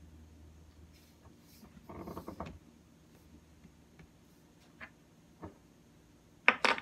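Handling noise from a lightweight plastic-and-aluminium phone tripod as it is adjusted and set down: a short rattle about two seconds in, then two light clicks. Two sharp, louder clicks come right at the end.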